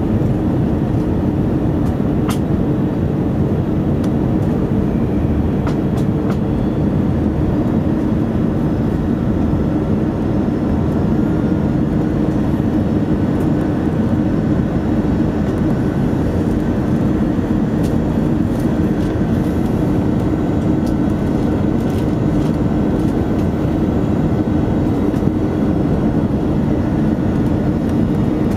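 Steady cabin noise inside an Airbus A319 during its arrival descent: a constant low rumble of the engines and airflow, with a faint high tone coming in about halfway through.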